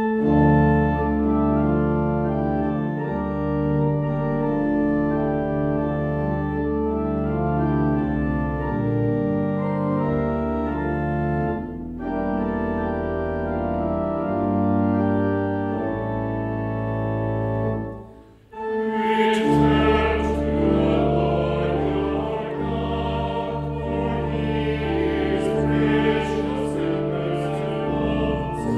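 Church organ playing held chords, with brief breaks about twelve seconds in and again near eighteen seconds. After the second break, singing joins the organ.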